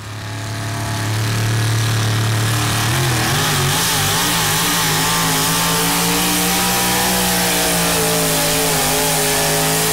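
A pulling pickup truck's engine at full throttle, hauling the weight-transfer sled. It gets louder over the first second or so; about three seconds in, the engine note climbs, then it holds high and steady.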